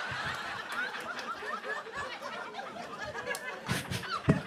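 Comedy club audience laughing: many voices chuckling and snickering at once, with a few sharp clicks near the end.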